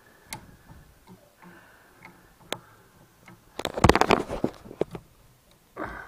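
Metal screwdriver clicking and scraping against the contacts and terminals of a well-pump pressure switch, prying at a stuck part. A few scattered ticks, then a burst of rapid rattling clicks about four seconds in, the loudest part, and a couple more clicks after it.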